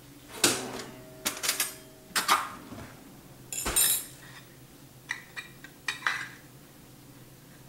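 Pizza cutter and a metal utensil clinking and scraping against the pan while a slice of cake is cut out: a string of sharp clinks and scrapes, one of them ringing briefly about a second in, the loudest knock a little before four seconds.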